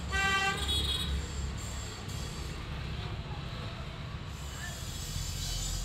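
A vehicle horn toots once, for about half a second, at the start, over a steady low rumble of traffic.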